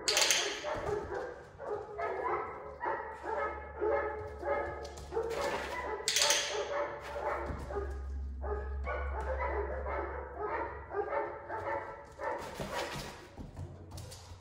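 German Shorthaired Pointer puppy whining and yipping in quick runs of short high-pitched cries, with two louder, sharper sounds at the start and about six seconds in.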